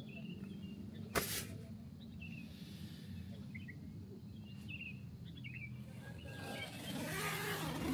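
Outdoor campground ambience: a steady low hum with scattered short, faint high chirps, a single sharp click about a second in, and louder rustling that builds near the end.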